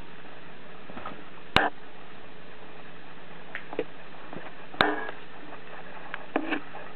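Kittens playing in a wire pen: two sharp knocks about three seconds apart, with a few fainter taps and rattles in between, over a steady low hiss.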